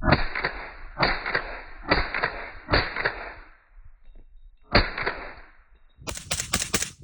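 Suppressed rifle with a Triarc 11.5-inch barrel firing five shots: four about a second apart, then a fifth after a pause of about two seconds. A quick run of sharp clicks follows near the end.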